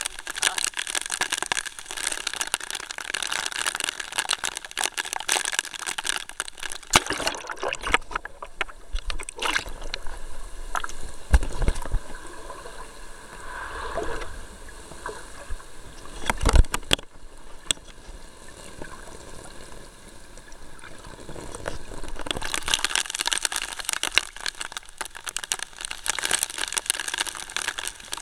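Heavy rain pattering on the sea surface and on the camera, a dense crackling hiss of drops. In the middle the sound turns duller with gurgling and two low thumps as the camera goes into the water, then the full rain hiss returns near the end.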